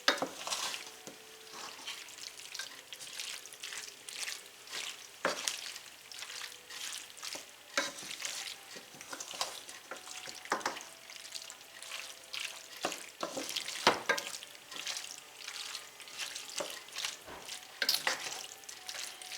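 Pan of hamburger, pasta and diced tomatoes sizzling over medium heat while it is stirred, with irregular scrapes against the pan every second or so.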